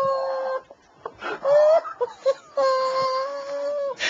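A man's voice coming out as a high, squeaky whine in drawn-out, held notes rather than words: three notes, the middle one rising and the last held steady for over a second. It is the strange voice of a speaker with damaged vocal cords.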